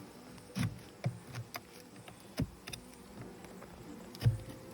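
A handful of short wooden knocks and clicks, the loudest near the end: beehive frames and box parts bumping as they are handled.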